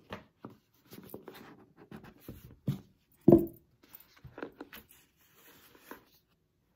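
A rigid cardboard gift box handled on a table: scuffing, tapping and rustling as the lid is worked off, with one louder thump about three seconds in.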